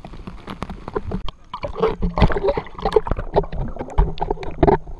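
Water splashing and gurgling around a waterproof action camera as it goes into the water, with many irregular knocks and bubbling. The sound turns dull and muffled near the end as the camera is under water.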